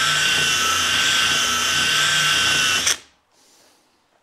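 Cordless drill spinning a rotary steel brush against a ski base, stripping off the liquid wax film: a steady motor whine over a high hiss, which stops abruptly about three seconds in.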